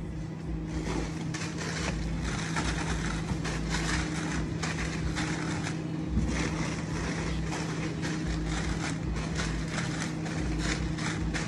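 Plastic snack-chip bags crinkling and rustling irregularly as they are handled and pulled from a cardboard case, over a steady low hum.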